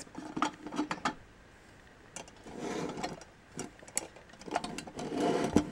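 Hard plastic toy parts clicking and rattling as a small plastic playset and its hinged door are handled: a quick run of clicks at first, then soft scraping and rubbing twice.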